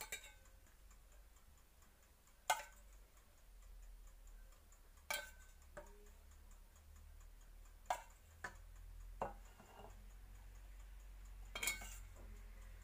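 A metal spoon clinking against metal pans while syrup is spooned over a cake, about seven short sharp clinks every second or two, a few close together near the middle.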